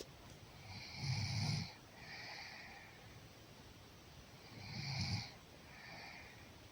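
A sleeper snoring: two loud snores about three and a half seconds apart, each followed by a softer breath.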